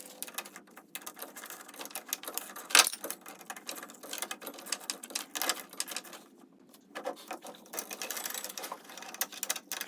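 Ratchet wrench clicking rapidly in runs as the sprocket and engine-mount bolts are loosened, with one sharp knock about three seconds in.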